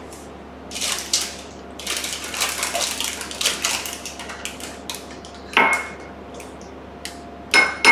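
Metal spoon scraping and clinking around a small glass bowl, stirring microwaved milk chocolate that has not melted. Two sharper ringing clinks, one about five and a half seconds in and one near the end.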